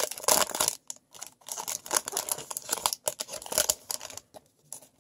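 Crinkling and tearing of a Bowman's Best baseball card pack's crimped wrapper as it is ripped open and the cards are pulled out. The rustling stops about four seconds in.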